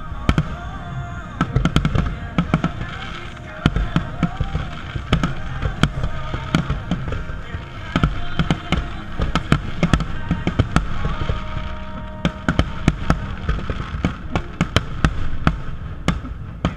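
Aerial firework shells bursting in quick succession: a dense run of sharp bangs over low booms, with music playing underneath.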